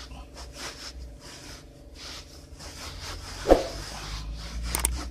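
Microfiber cloth rubbing back and forth across a car's fabric headliner: repeated short swishes, with one louder thump about three and a half seconds in and two sharp clicks near the end.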